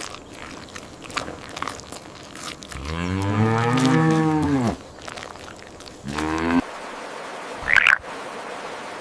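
Cow mooing: one long moo that rises and then falls in pitch, and a shorter moo about a second and a half later. A brief high chirp follows near the end.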